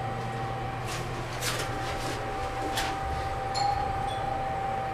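Mitsubishi Elepet Advance V rope elevator car travelling, with a steady drive whine and hum and a few sharp clicks along the way. About three and a half seconds in, two short high tones sound, the car's two-tone arrival chime.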